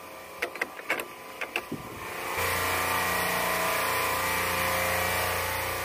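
Audio logo sound effect: a quick run of sharp clicks and ticks over the first two seconds, then a sudden loud, steady drone with hiss from about two and a half seconds in.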